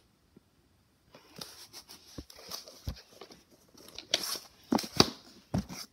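Small plastic toys and a plastic playset being handled: after a brief hush, scattered light rustling with several sharp clicks and knocks as plastic pieces are moved and tapped together, the loudest knocks about four and five seconds in.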